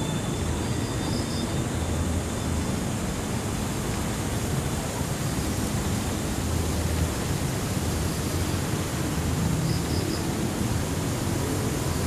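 Steady outdoor background noise: an even hiss with a low rumble underneath, and two faint short high chirps, one about a second in and one near the end.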